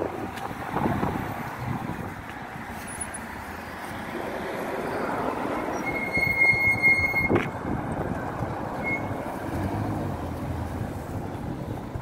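City street traffic noise: a steady rush of passing vehicles. Just past the middle a high, steady squeal lasts a little over a second and ends in a sharp click.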